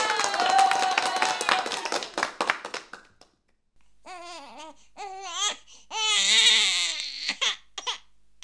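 A baby crying in a series of wavering wails, starting about four seconds in, the harshest near the end. It follows a high, slowly falling squeal mixed with rapid clicks that stops about three seconds in.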